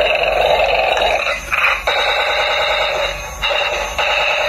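Battery-operated toy tank playing its electronic sound effects through a small speaker: a loud, rasping, alarm-like beeping that changes pattern every second or so.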